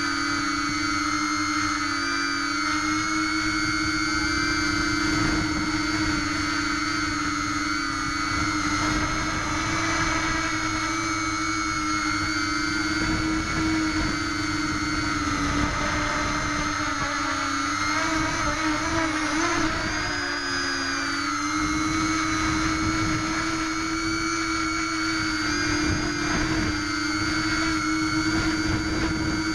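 Brushless motors and propellers of a scratch-built H-frame quadcopter in flight, heard through the camera mounted on the frame: a steady high whine whose pitch wavers slightly now and then, most clearly about two-thirds of the way through. A rough low rumble runs underneath it.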